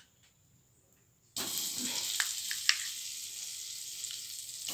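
Butter sizzling as it melts in a hot aluminium kadai: a steady hiss that starts suddenly about a second and a half in, with a few light clicks.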